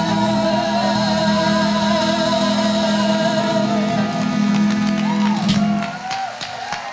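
Live gospel choir and lead vocalist holding a final sustained note with vibrato over the band's held chord. The chord cuts off about six seconds in, and hand claps and the start of applause follow.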